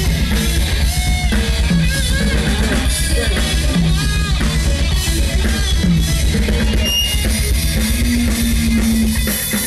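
Live death metal band playing: fast, dense drum-kit and bass-drum beats under electric guitars and bass.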